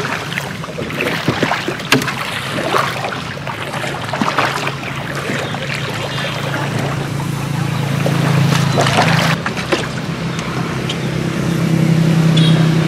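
Small boat engine running steadily at low speed, picking up a little about eight seconds in and again near the end, with scattered splashes and knocks over it.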